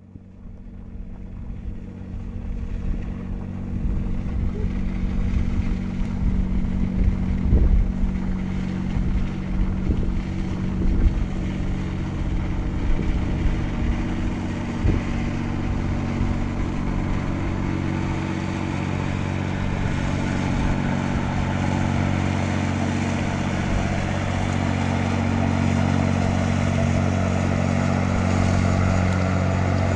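Fishing trawler's diesel engine running with a steady, deep drone as the boat passes close by, swelling up over the first few seconds. Irregular low buffeting on the microphone comes through in the first half.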